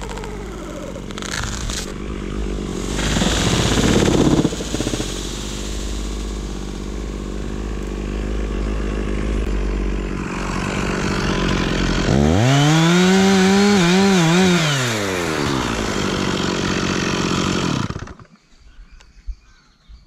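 Stihl MS 460 two-stroke chainsaw running at idle, with a loud rushing crash about three to four seconds in as the cut treetop comes down. About twelve seconds in the saw is revved up once, held, and let back down, then it is shut off and cuts out suddenly near the end.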